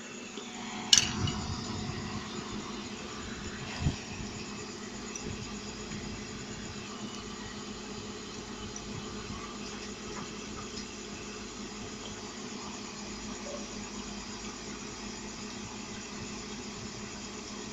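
Homemade fan running with a steady motor hum and airflow hiss. A sharp click comes about a second in, and a duller knock near four seconds.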